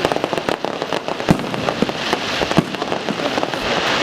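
Aerial fireworks bursting: several sharp bangs over dense crackling, with a hissing crackle swelling in the second half.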